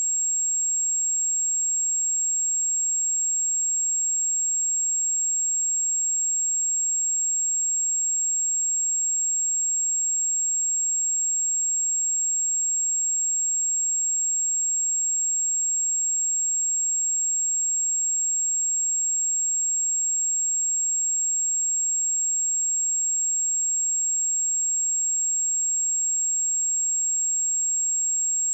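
Steady, high-pitched pure sine tone at 7567 Hz, a speaker test signal, held at a constant level without a break.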